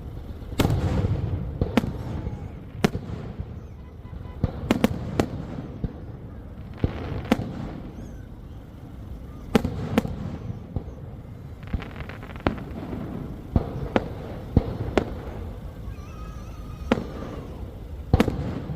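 Fireworks bursting: a run of sharp, irregularly spaced bangs, several close together, over a continuous low rumble.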